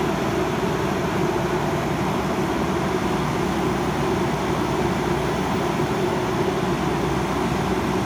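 JCB backhoe loader's diesel engine running steadily.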